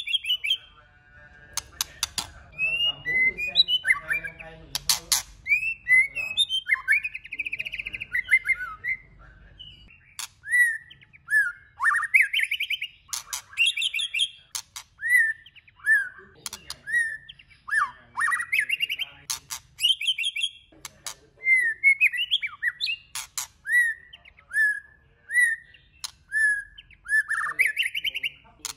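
White-rumped shama singing: varied whistled phrases with rising and falling glides, then from about ten seconds in a string of short whistles roughly one a second, with sharp clicks now and then.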